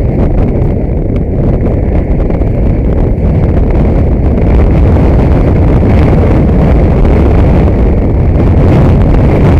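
Car being driven on a road, heard from inside the cabin through a dashcam microphone: a loud, steady low rumble of engine, tyres and wind, growing a little louder about four seconds in.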